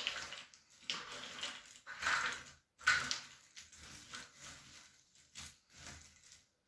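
Cardboard jigsaw puzzle pieces rustling and clattering in the box as they are stirred by hand, in several surges that die down near the end.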